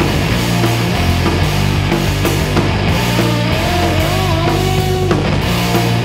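Loud live heavy psychedelic rock: distorted electric guitars over bass and drums playing steadily. A wavering lead line sounds above the band from about three seconds in to about five.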